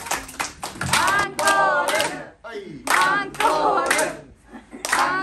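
A small audience clapping, with voices calling out over the applause several times. The clapping dips briefly twice.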